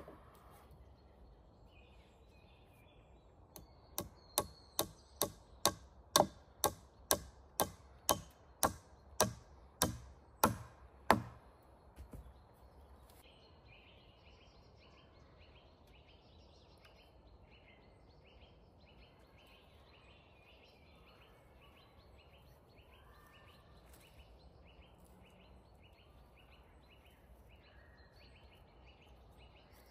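A steady run of about fifteen sharp tool blows on wood, about two a second, lasting some seven seconds. Afterwards there is faint, rhythmic chirping.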